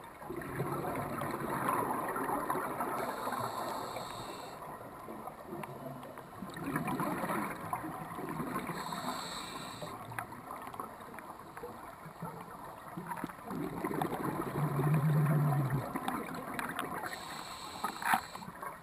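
Scuba regulator breathing heard underwater: a short high hiss of inhalation three times, alternating with longer, louder rushes of bubbling exhaled air.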